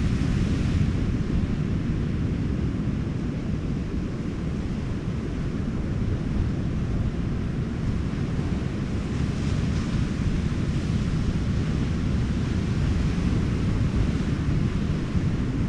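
Wind rumbling on the microphone over the hiss of ocean surf, with the surf swelling twice, at the start and about nine seconds in.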